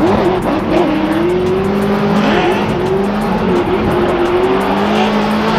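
Pontiac GTO drift car's engine revving hard during a drift run, its pitch rising and falling several times as the throttle is worked, with tyres squealing.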